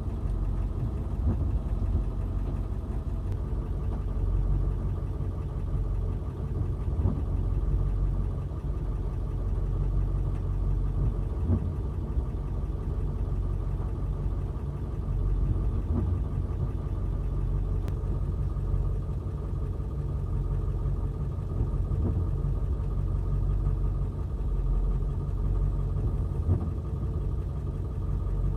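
Backhoe's diesel engine running steadily, with a few light knocks now and then.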